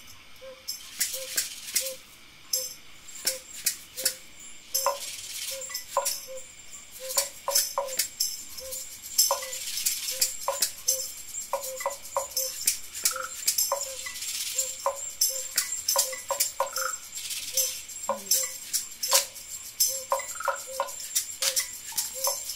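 Group improvising free percussive textures: shaking rattles and shakers, with scattered clicks, taps and short pitched blips, over a soft pitched tick repeating about one and a half times a second.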